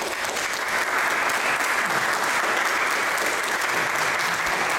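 Audience applauding, the clapping building over the first second and then holding steady.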